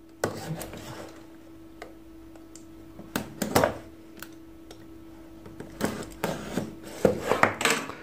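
Utility knife slitting the plastic wrapping on a cardboard phone box, with crinkling of the plastic and light clicks and taps as the box is handled, louder about halfway through and again near the end. A faint steady hum runs underneath.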